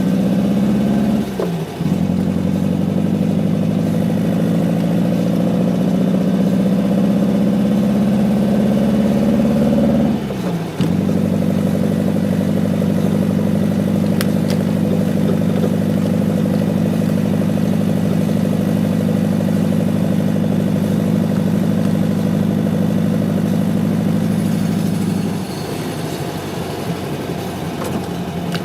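VW Beetle 1600's air-cooled flat-four engine heard from inside the cabin while driving. It pulls with slowly rising pitch, breaks briefly twice near the start and about ten seconds in for gear changes, then holds a steady cruise before easing off near the end.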